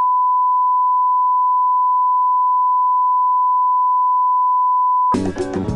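Steady 1 kHz reference test tone of the kind that accompanies colour bars, a single unwavering beep. It cuts off suddenly about five seconds in as music with guitar begins.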